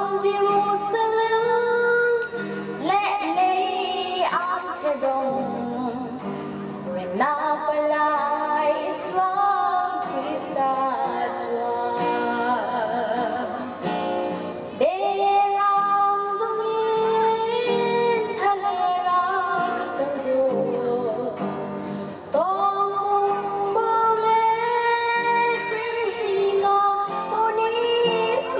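A woman singing into a microphone with an acoustic guitar accompanying her. The melody comes in long phrases of held, wavering notes, with a short breath between phrases about every seven seconds.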